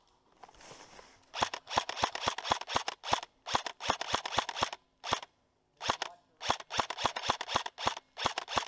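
Airsoft rifle firing in repeated rapid bursts of sharp shots from about a second and a half in, with short pauses between bursts and one lone shot midway. A brief rustle of dry leaf litter comes before the first burst.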